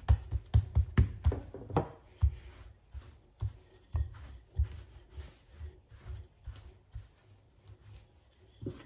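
Wooden rolling pin rolling out a large round of soft yeasted dough on a floured countertop, with hands pressing the dough between strokes: a run of soft, irregular low thumps and rubs, thicker in the first couple of seconds, then sparser.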